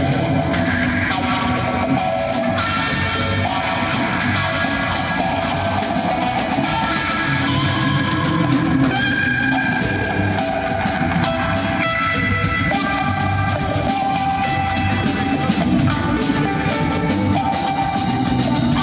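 Live rock band playing: an electric guitar through Marshall amplifiers holds notes that move to a new pitch every second or so, over busy drum kit playing.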